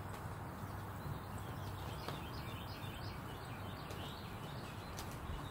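Faint bird chirps over a steady low background hum, with a couple of light clicks.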